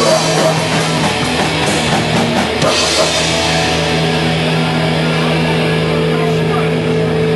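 Live hardcore punk band playing drums and distorted guitar, with a last cymbal crash about three seconds in. After the crash the drums stop and a steady, droning amplified note rings on.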